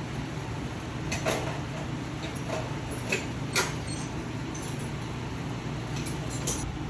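A handful of short, light clicks and knocks from hand tools being handled, over a steady background hum.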